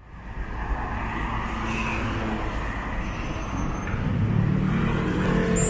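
City street traffic: the steady mixed noise of cars and vans driving past, fading in at the start, with one vehicle's engine growing louder in the last couple of seconds.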